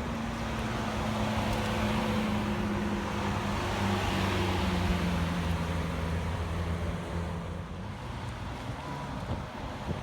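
Lamborghini Aventador S's V12 engine as the car drives past at steady speed, with no revving. Its note drops in pitch at its loudest, about four seconds in, then fades away.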